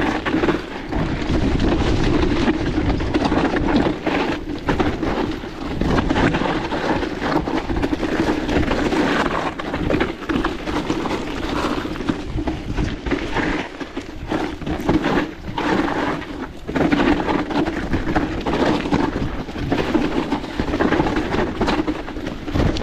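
Wind buffeting an action camera's microphone on a mountain bike descending a steep trail, mixed with tyre noise on dirt and the bike rattling over rough ground. The noise is loud and continuous, broken by many small knocks.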